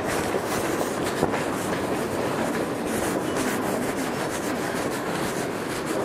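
Steady rumbling, rattling noise with a stream of faint clicks and taps while moving along a tiled airport terminal corridor, without speech.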